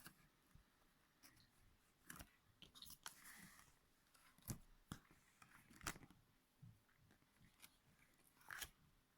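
Faint, scattered taps and rustles of a cardboard board book being handled as its pages are turned, a few sharp clicks among them.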